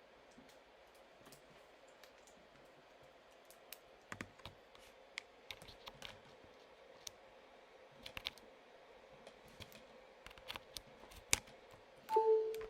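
Scattered light clicks and taps at close range, irregular and a fraction of a second apart at most, like objects being handled and plugged in. A short steady tone sounds near the end.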